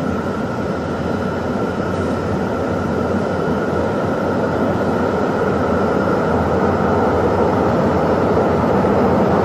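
São Paulo Metro Frota J train running in an underground station: a steady rumbling hum with a faint high whine, growing gradually louder.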